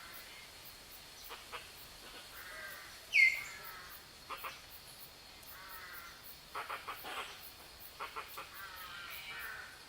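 Several forest birds calling: repeated harsh, raspy calls, one loud clear call sweeping down in pitch about three seconds in, and short sharp chirps in the second half, over a faint steady high whine.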